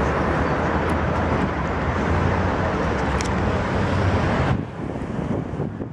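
Street traffic noise with wind rumbling on the microphone; the noise drops off sharply near the end.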